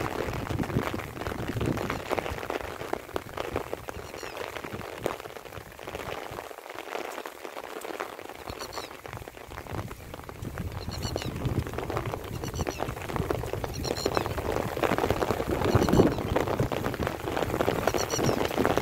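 Light rain pattering, a dense patter of small drops, easing a little in the middle. A short high chirp repeats every second or two over it.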